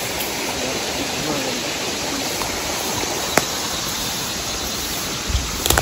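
Steady rushing of a rain-swollen river or creek flowing over rocks. A single sharp click about halfway through and a few low bumps near the end.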